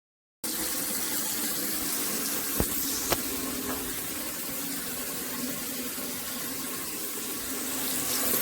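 Tap water running steadily into a bathroom washbasin and down through its newly fitted pop-up drain and trap, a test of drain speed and leaks after the replacement. It starts about half a second in, with two sharp clicks a half-second apart around the three-second mark.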